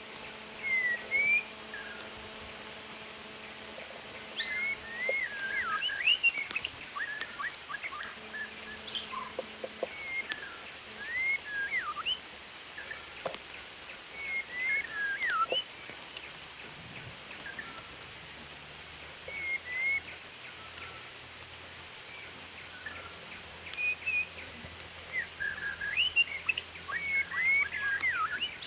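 White-rumped shama singing in short bursts of whistled notes that glide up and down, with pauses between phrases, over a steady high-pitched background whine.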